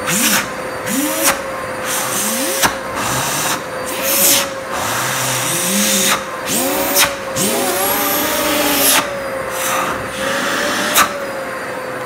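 Electrolux HidroVac A10 wet/dry vacuum running on a swapped-in motor of about 1600 watts by the owner's estimate, a steady high whine. A hand repeatedly seals and lifts off the intake port, giving a dozen or so surges of rushing air with short whistles as air leaks past the palm, a sign of very strong suction.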